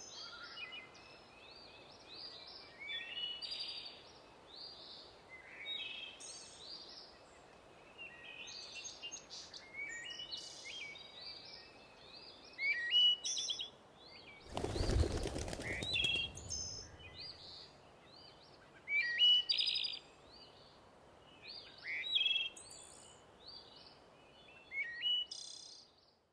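Songbirds singing: many short chirping and trilling phrases, overlapping throughout. About halfway through, a loud burst of noise covers them for about two seconds.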